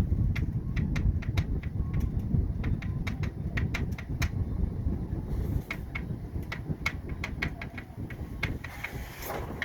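Irregular clicking from inside a heating air duct, several clicks a second, over a steady low rumble.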